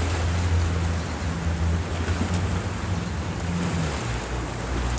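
Cruise boat's motor droning steadily under way, with water rushing along the hull. The engine note shifts about four seconds in.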